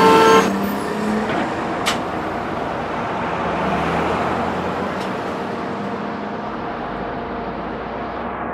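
City street traffic: car and bus engines running in congested stop-and-go traffic, a steady rumble with two sharp clicks. The noise slowly dims toward the end.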